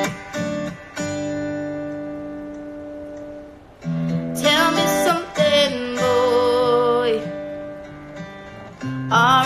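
Acoustic guitar strumming chords that are left to ring out. A woman's voice sings a wavering line over it about halfway through, and again near the end.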